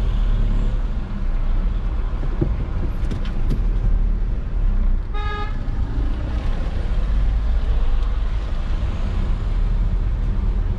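Steady low road and engine rumble inside a moving car's cabin, with one short horn toot about five seconds in.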